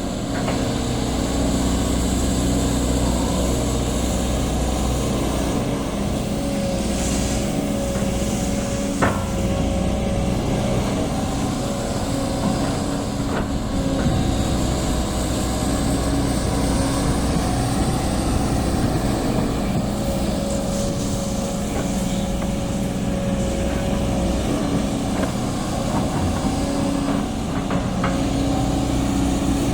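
Sany SY215C excavator's diesel engine running steadily under work, with a few sharp knocks, the loudest about nine seconds in.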